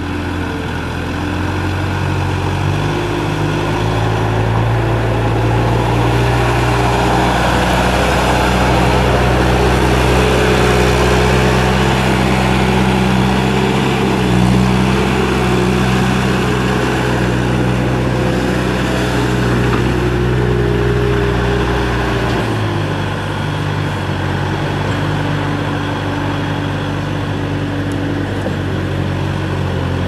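Kubota 3.3-litre four-cylinder turbo diesel of a Bobcat A300 skid steer running under throttle as the machine drives and turns. The engine picks up a few seconds in, holds steady, then drops to a lower speed about three-quarters of the way through.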